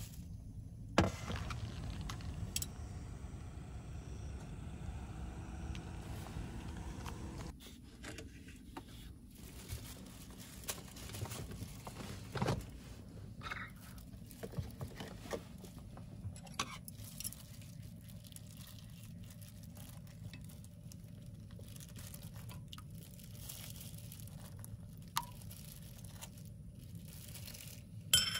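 Quiet cooking sounds at a small portable gas stove: a low steady burner rumble, which drops after about seven seconds, under a few sharp clicks and knocks of pots, utensils and food containers being handled. The loudest knocks come about a second in, around twelve seconds in and near the end, as the tofu goes into the pot.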